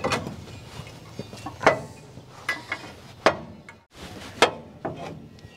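Scattered sharp metallic clinks and knocks, about half a dozen, from hand tools and metal parts being handled while a transmission mount is fitted.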